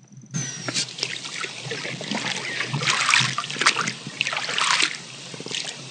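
Water splashing and trickling in irregular surges.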